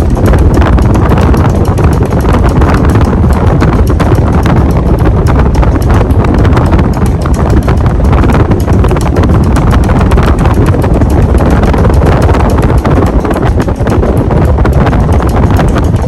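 52-inch Gulf Coast Tiara ceiling fan running, its blade draft buffeting the microphone with a loud rushing and rapid, uneven pulsing.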